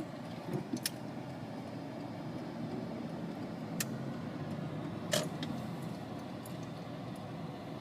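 Car driving, heard from inside the cabin: steady engine and tyre noise on the road, with a few light, irregular clicks.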